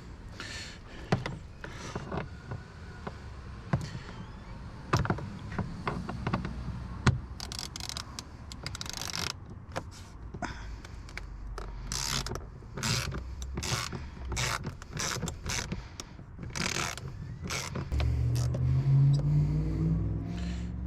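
Scattered clicks, knocks and rattles of hand work on a car door's interior trim: plastic covers and clips being pried loose and screws worked out of the door panel. A low hum that rises slightly in pitch comes in near the end.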